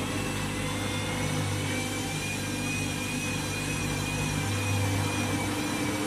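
Front-loading washing machine running, its drum turning with water and laundry inside. The motor gives a steady low hum with a faint, slightly wavering high whine over it.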